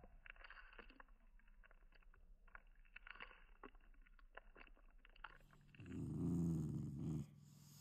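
Black Shiba Inu growling once, a low rumbling growl of about a second and a half near the end, made while being petted: an affectionate growl, not an angry one. Before it, only faint scattered clicks.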